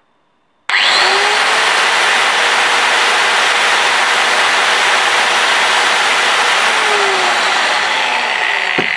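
Angle grinder for 180 mm discs switched on straight from the mains with no soft-start: it snaps up to full speed almost at once, less than a second in, then runs unloaded with a loud, steady whine. Its pitch begins to sag near the end, with a click.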